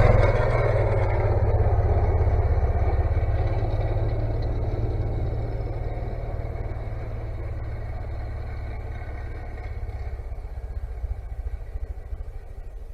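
A vehicle engine running steadily with a low rumble that grows gradually fainter, as if it is moving away.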